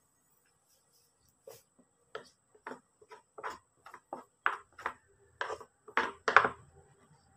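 A small kitchen knife cutting pieces off a crisp, unripe young papaya: a run of short sharp cuts, about three a second, starting about a second and a half in and getting louder toward the end.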